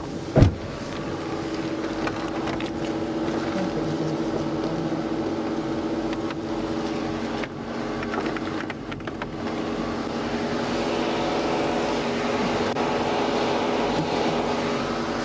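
Parked patrol car idling with a steady mechanical hum. A single sharp thump comes about half a second in.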